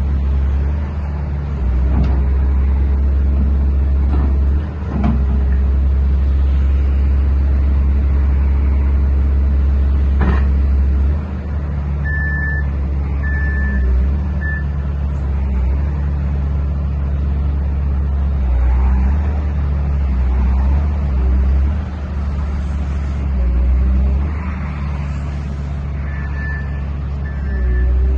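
Diesel engine of a Hyundai 200W-7A wheeled excavator running steadily, its level rising and dipping now and then as the machine works. Intermittent beeps from its warning alarm come in around twelve seconds in and again near the end.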